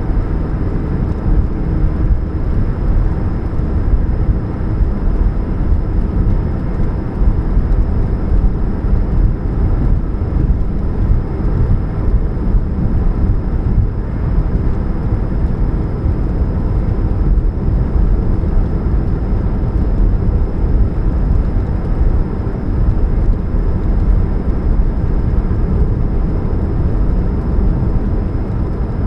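Steady low rumble and hum of a 2013 Chevrolet Spark running, with a faint steady tone through it; the owner puts the humming down to a leaking catalytic converter.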